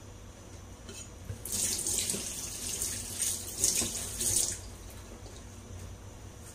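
Kitchen tap running into the sink for about three seconds, starting about a second and a half in and shutting off.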